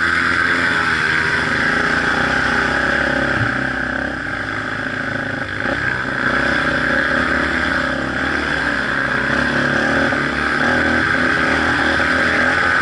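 Off-road vehicle engine running hard on a dirt trail. The revs climb right at the start, then hold steady at high revs with small rises and dips.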